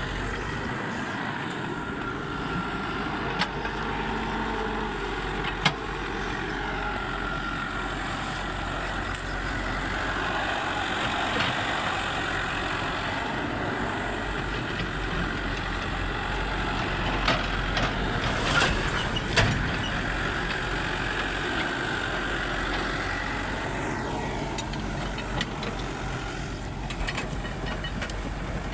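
Diesel engine of an excavator running steadily with a faint wavering whine, and a few sharp knocks, the loudest cluster about two-thirds of the way in.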